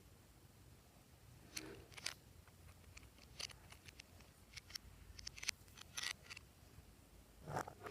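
Glossy slime being worked by hand, giving faint, irregular sticky clicks and small crackling pops that start about one and a half seconds in.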